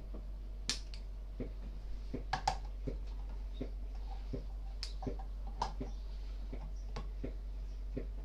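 Hand-held can opener being cranked around a baked-bean tin: a run of sharp, irregular metal clicks, about two a second, as the cutting wheel bites and the key is turned.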